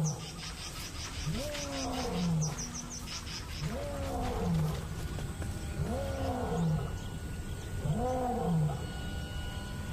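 Male lion roaring: a series of deep calls, each rising and then falling away, about one every two seconds. It is the territorial roar of a pride male proclaiming ownership of his range.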